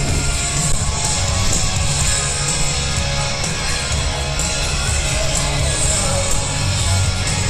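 Live heavy metal music from a festival stage PA, heard from far back in an open-air crowd: loud electric guitars over a heavy, steady low end.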